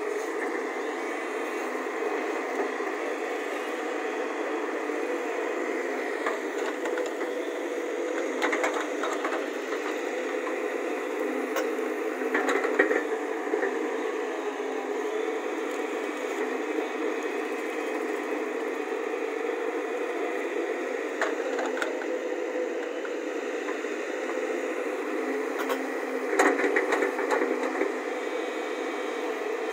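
JCB JS140 tracked excavator's diesel engine and hydraulics running steadily under digging load, with a few short, louder bursts, the strongest about twelve and twenty-six seconds in.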